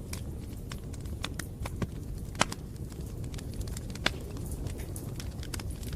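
Campfire burning and crackling: a steady low rumble of flames under irregular sharp pops and snaps, with two louder pops about two and a half and four seconds in.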